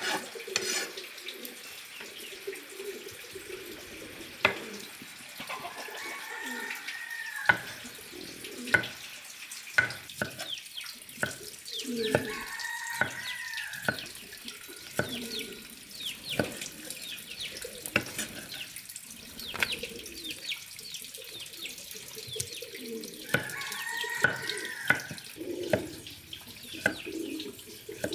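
Water splashing and trickling, with scattered sharp knocks. A rooster crows three times and chickens cluck in the background.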